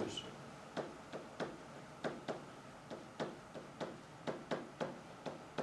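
Pen tip tapping and scraping on an interactive whiteboard as words are written: a string of short, uneven ticks, about two to three a second.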